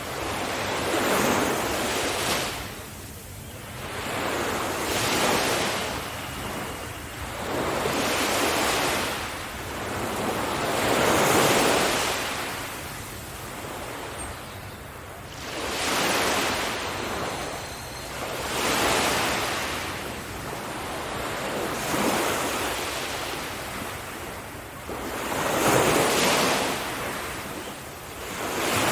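Sea waves breaking on a beach, the surf swelling and washing back in a fresh surge every three to four seconds.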